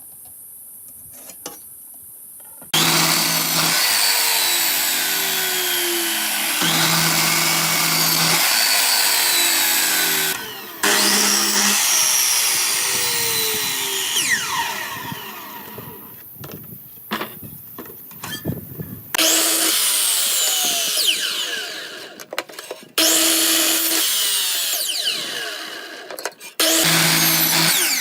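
Power tool working pallet wood in several runs of a few seconds each. The first starts abruptly about three seconds in, and each trails off or cuts out before the next begins.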